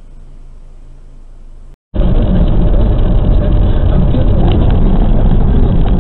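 Steady driving noise inside a moving car's cabin: a quiet low hum at first, then, after a brief dropout about two seconds in, loud dense road and engine noise that holds steady.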